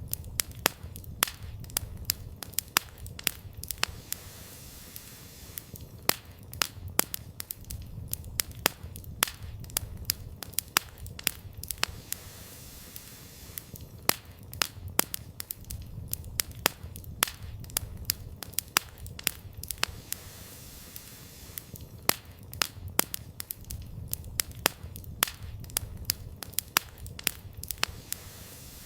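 Wood campfire burning, with frequent sharp crackles and pops of the firewood over a steady low rumble of the flames.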